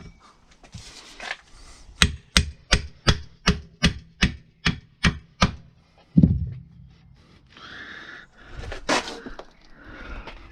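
A run of about ten sharp hammer taps, roughly three a second, then a single heavier thump about six seconds in, with softer handling noises around them.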